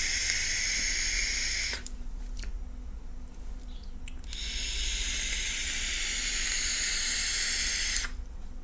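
Two long draws on an eLeaf iStick 30W e-cigarette with a Melo tank, its airflow wide open: a steady airy hiss as air is pulled through the tank over the coil. The first draw stops about two seconds in; the second starts around four seconds in and lasts about four seconds.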